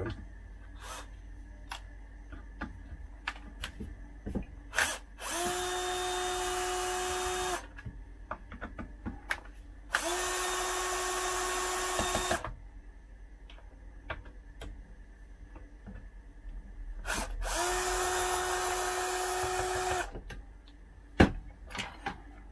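Cordless drill-driver backing screws out of a chainsaw's top cover in three runs of about two seconds each. Each run's whine rises briefly as the motor spins up, then holds steady. Short clicks and knocks fall between the runs.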